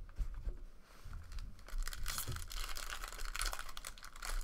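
Wrapper of a 2013 Upper Deck SP Authentic football card pack being torn open and crinkled, a dense crackle that starts about two seconds in, after a few light handling clicks.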